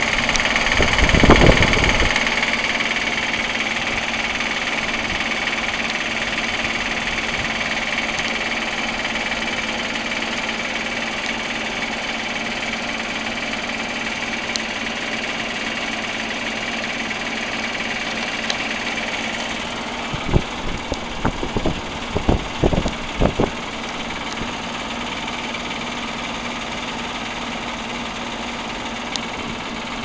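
Outdoor air-conditioner condenser units running with their three-blade fans spinning: first an old Amana, giving a steady hum with a hiss of moving air. About twenty seconds in this gives way to a Rheem Classic unit running with a steady hum, with a few short thumps just after the change.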